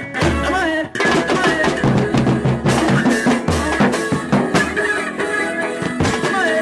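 Band music with a drum kit playing a steady, busy beat under a pitched melodic line.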